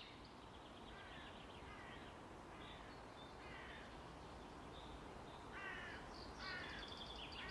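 Crows cawing several times at irregular intervals, harsh rasping calls over a faint steady hiss.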